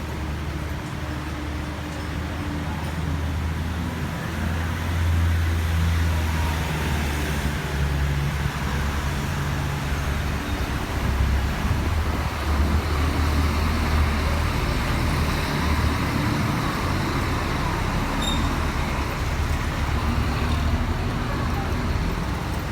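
Road traffic with a heavy engine's low, steady rumble close by, growing louder about five seconds in.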